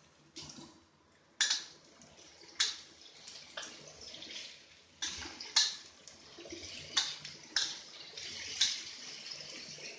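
Metal spatula scraping and knocking against a stainless steel wok, roughly once a second, as vegetables and tempe are stir-fried, over a hiss of food sizzling in the oil.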